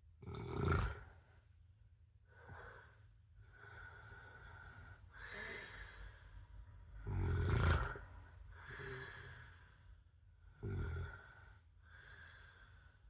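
A man snoring in his sleep: three loud snores, just after the start, about halfway through and near the end, with softer breaths between them.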